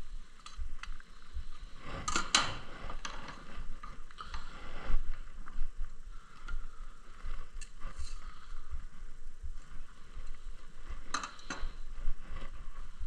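Woodworking bench noises: irregular knocks, clicks and scraping from wood pieces and hand tools being handled, louder around two seconds in and again near the end.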